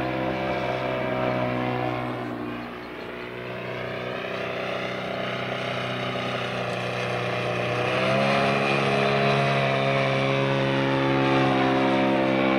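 Engine of a half-scale radio-controlled de Havilland Tiger Moth, a 384cc twin-cylinder inline petrol engine, running in flight and driving its propeller. The sound fades and drops about two seconds in, then grows louder and rises in pitch from about eight seconds in.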